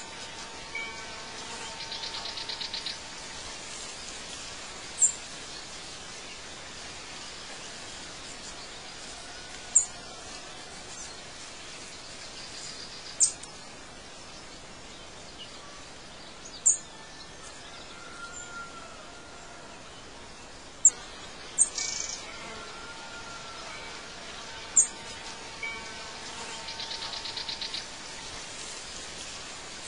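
Nature ambience of birdsong: sharp, very high single chirps every three to five seconds over a steady hiss, with a short buzzing trill twice.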